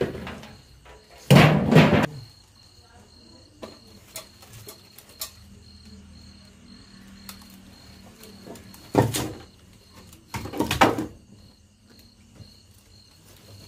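Loose bricks and stone pieces shifted by hand, giving short scraping knocks: a loud one about a second and a half in, then two more near the end, with small clicks in between.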